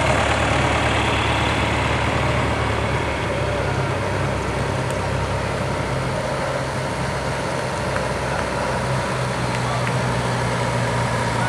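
Farm tractor's diesel engine running steadily at low speed as it drives slowly past.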